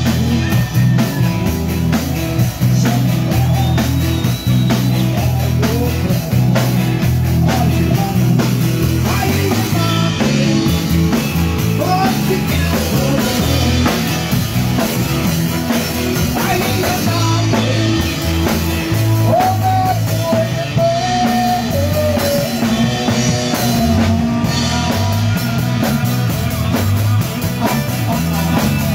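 Live band playing amplified electric guitars over a drum kit, with a steady rock beat.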